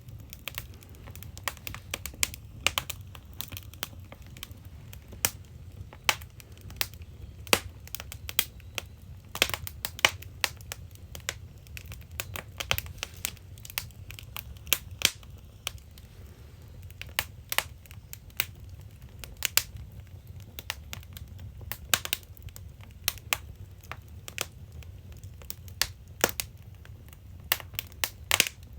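Firewood burning in a traditional Korean agungi firebox, crackling with irregular sharp pops over a low steady rumble.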